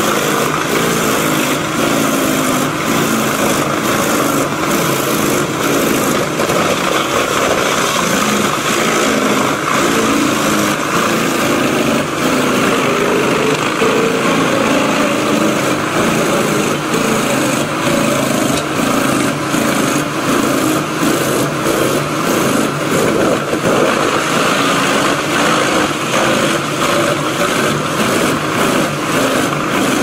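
Large truck-mounted wood chipper running under load as it chips whole logs, a steady loud machine drone with a wavering engine note and dense irregular cracking and knocking from the wood going through.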